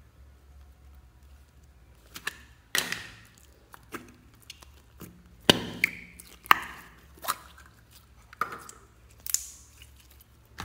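A plastic slime jar being opened and thick green slime pulled out and squeezed by hand: a string of sharp clicks and sticky pops, starting about two seconds in and loudest about halfway through.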